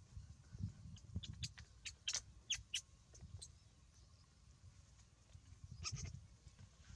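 Baby monkey squeaking in short, high-pitched chirps: a quick run of them about a second in and another brief burst about six seconds in, over a low rumble.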